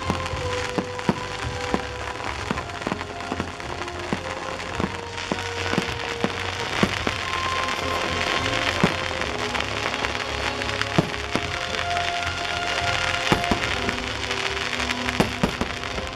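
Fireworks going off over show music: sharp bangs scattered throughout, with a denser crackling patch in the middle.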